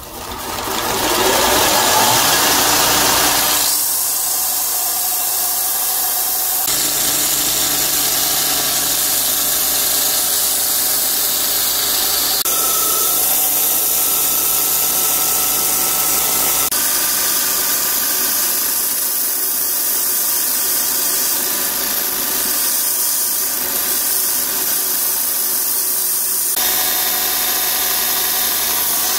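Belt grinder running with a steel saw-blade knife blank pressed against the abrasive belt: a steady, loud grinding hiss over the motor's hum. It builds up over the first two seconds and changes abruptly a few times.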